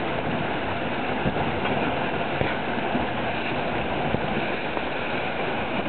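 Steady rush of water and spray along the hull of a Dragonfly 1200 trimaran sailing at about 9 knots, mixed with wind buffeting the microphone.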